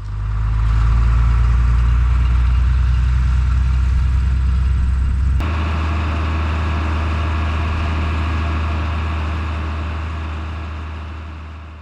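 Older farm tractor's engine running steadily under the driver's seat as the tractor drives along. The engine note changes abruptly about five seconds in, then the sound fades out near the end.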